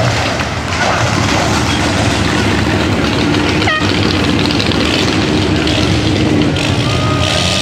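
Mega truck's engine running loud and steady with a low drone, as the truck comes off a dirt jump and drives across the field.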